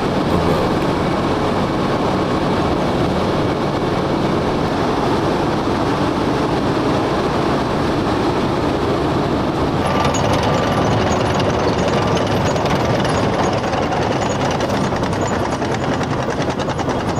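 Heavy construction machinery running steadily with a deep continuous rumble; about ten seconds in the sound changes to a brighter, rattling machine noise.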